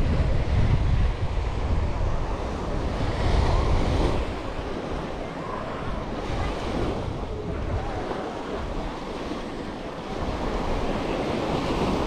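Small waves washing and breaking on a sandy shore, swelling and fading every few seconds. Wind buffets the microphone with a low rumble, strongest in the first few seconds.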